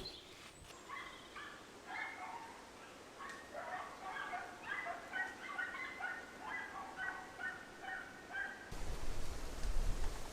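A bird calling in a rapid run of short, pitched notes that hop between pitches for several seconds. The calling stops abruptly near the end, where a low rumble takes over.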